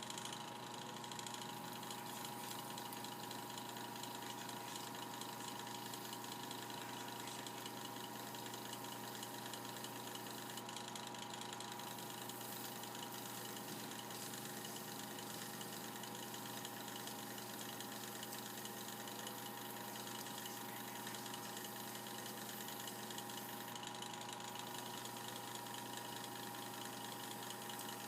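Mini sanding machine's capacitor-run electric motor running steadily with a constant whine, spinning on its replacement run capacitor.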